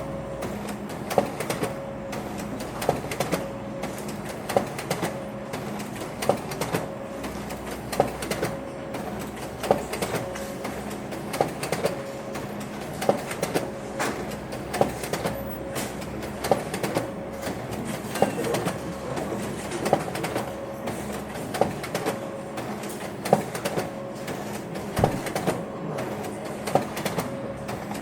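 Office ambience: a machine running with a steady hum and a sharp clack repeating evenly, about once every second and three quarters.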